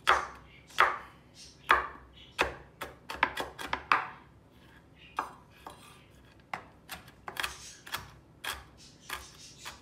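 Chef's knife chopping almonds on a wooden cutting board: a run of sharp, irregular knocks of the blade through the nuts onto the wood, with a few quicker strokes in a row about three to four seconds in.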